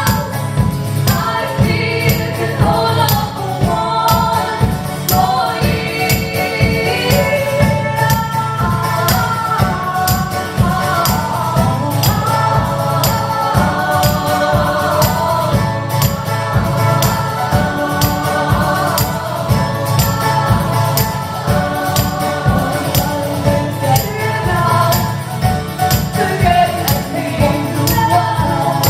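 Live song performance: several singing voices over a steady percussion beat with a jingling tambourine-like sound.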